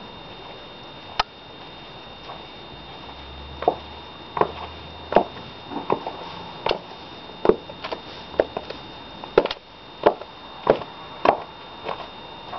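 Footsteps of high heels clicking on hard ground, a sharp click roughly every three quarters of a second at a steady walking pace.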